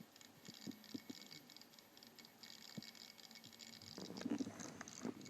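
Western Digital Passport 1TB external hard drive, plugged in but not readable, making a faint continuous static-like crackle with scattered ticks and clicks: the sign of a fault that WD says may be the USB cord. A soft low thud comes about four seconds in.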